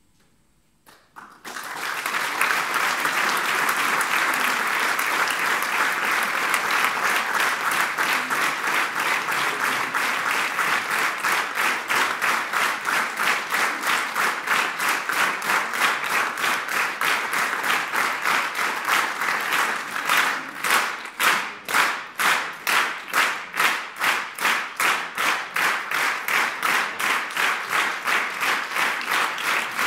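A large audience applauding, starting about a second in. About two-thirds of the way through the applause turns into rhythmic clapping in unison, about two claps a second.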